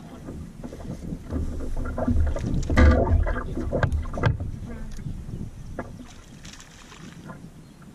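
Wind rumbling on the microphone, loudest in the first half, with a few light knocks and clicks.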